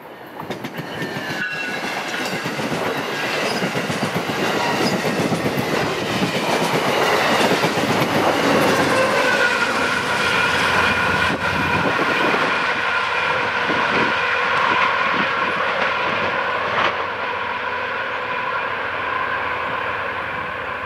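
Amtrak Downeaster passenger train, a GE Genesis diesel locomotive and its coaches, passing close by at speed, with the wheels clattering over the rail. Its horn chord sounds over much of the pass. The sound is loudest in the middle as the train goes by.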